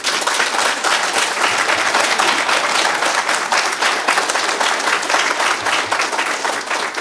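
Audience applauding: steady, dense clapping from many hands.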